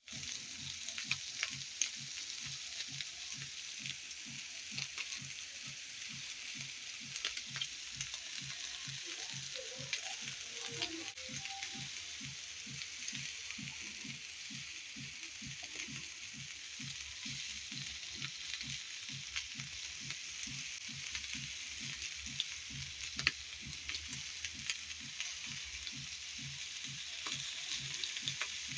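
Food sizzling on a hot comal griddle: a steady hiss with scattered crackles and pops. Underneath runs a faint low pulse about two to three times a second.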